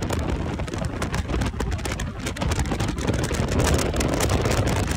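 A vehicle running over open ground, its low engine rumble buried under heavy wind noise on the microphone, with a dense crackling hiss throughout.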